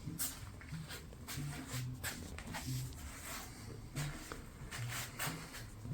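Quiet shuffling, soft steps and handling noise from a phone held by someone walking around in a small room.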